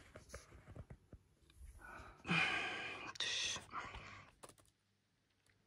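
A man's breathy, whispered voice in two short spells about two seconds in, after a few faint clicks. The sound then cuts out to silence near the end.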